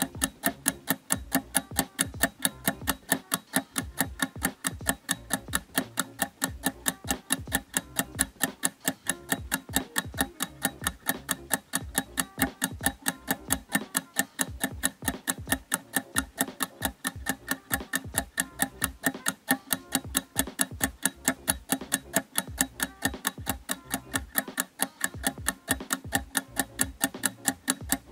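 Fast, even clock-like ticking, several ticks a second, over a steady low tone.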